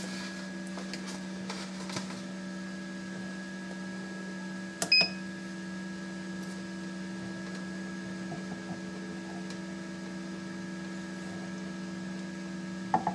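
Egg incubators' fans humming steadily, with one short electronic beep about five seconds in.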